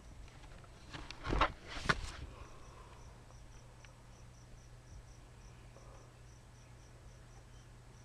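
Crickets chirping, a steady run of short, evenly spaced high chirps, with two brief loud noises between about one and two seconds in.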